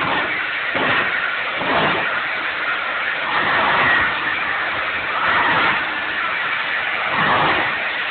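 Petrol-powered demolition hammer (motopicco) running: a loud, continuous mechanical noise that swells and eases every second or two.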